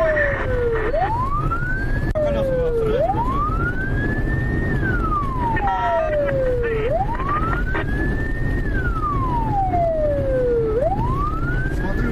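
Police car siren wailing, rising and falling slowly in pitch about once every four seconds, over a steady rumble of engine and road noise.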